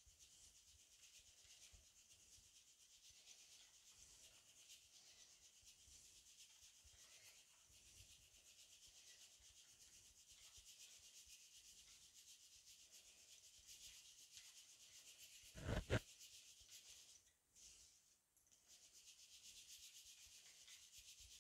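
Faint, steady rubbing of ground rice flour being pushed by hand through a plastic mesh sieve, a soft scraping hiss. One short thump about three-quarters of the way through is the loudest sound.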